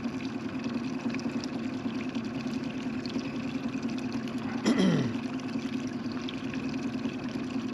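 Boat motor running steadily at trolling speed, a constant hum, with water trickling and splashing. About five seconds in, a brief sound slides down sharply in pitch.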